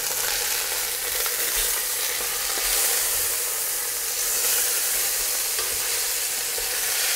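Wood pigeons and smoked bacon lardons sizzling steadily in hot olive oil in a cocotte, browning, with a wooden spatula stirring and turning the birds in the pot.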